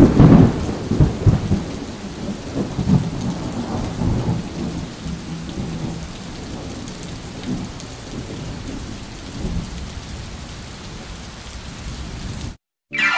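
Thunderstorm sound effect: steady rain with rumbles of thunder, heaviest in the first few seconds and easing off, then cutting off suddenly near the end.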